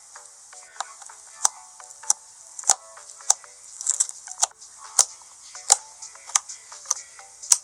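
Purple glitter slime being squeezed and poked, giving sharp clicking pops roughly every half second, over soft background music.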